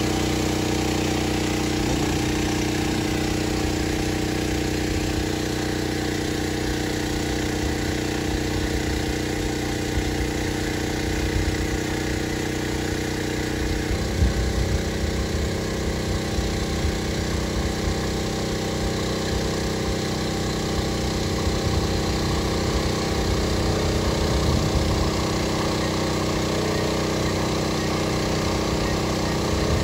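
DJI Agras T30 spray drone's rotors humming steadily in flight while spraying. The hum's pitch pattern changes about halfway through, and a low uneven rumble joins it from there.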